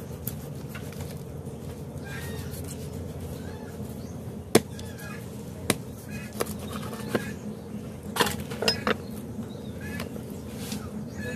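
A large knife chopping through a carp onto a wooden block: a handful of sharp knocks over several seconds, the loudest about four and a half seconds in, with a quick cluster a few seconds later.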